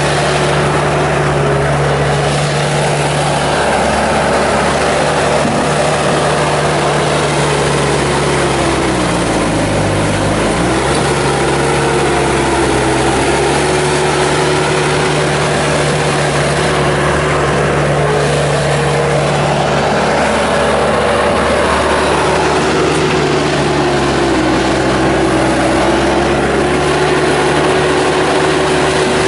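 Bobcat S250 skid steer's Kubota turbo diesel running steadily, its pitch sagging and recovering twice, about a third of the way in and again past three-quarters.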